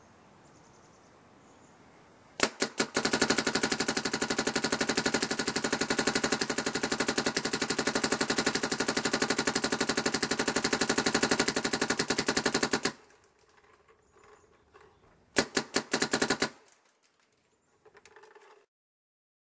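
Planet Eclipse GEO 3.1 electro-pneumatic paintball marker fired in PSP ramping mode. A few quick shots about two seconds in, then a long, even, rapid string of shots lasting about ten seconds, and a short burst of shots near the end.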